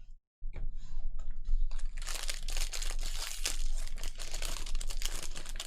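Foil wrapper of a baseball card pack crinkling and tearing as it is ripped open, a rapid crackle that grows dense about two seconds in, over a low electrical hum.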